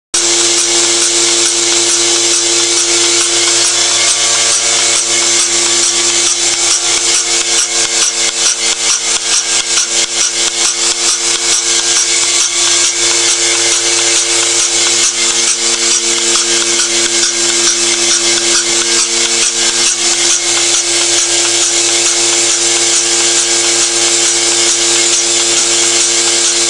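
Bucket milking machine running during goat milking: the vacuum pump's steady electric drone with fast, even ticking from the pulsation over it.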